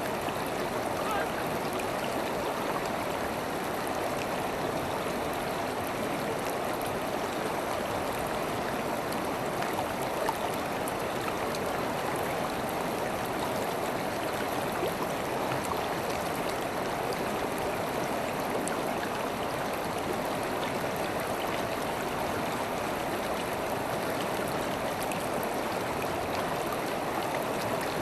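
River water flowing and rushing steadily, an even babble with no pauses.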